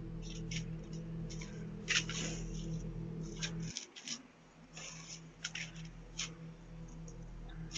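Doorbell camera's own microphone audio: a steady low electrical hum with scattered irregular clicks and light rustling. The hum drops out for about a second midway, then returns.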